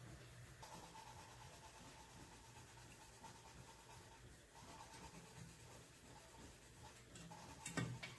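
Near silence in a workshop with a faint steady hum, broken near the end by one sharp metallic click as a steel valve-guide driver is set onto the aluminium cylinder head.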